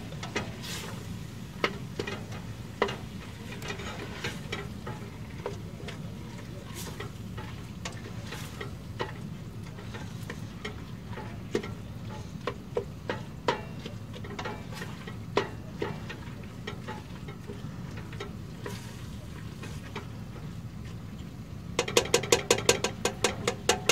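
Ground beef frying in a stainless steel stockpot, with a utensil scraping and tapping against the pot as the meat is stirred and broken up. Near the end, a rapid run of even clicks, about ten a second.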